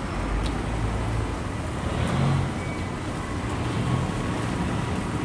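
Motor cargo barge's engine running steadily as the loaded barge passes close by, with water washing along its hull.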